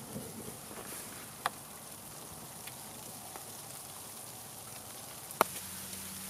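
Wood campfire burning with a steady hiss and scattered small crackles, and two sharp pops, one about a second and a half in and a louder one near the end.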